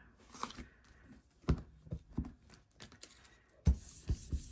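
A few light knocks and taps of handling, then near the end a rhythmic rubbing starts, several strokes a second, from work over a gel printing plate.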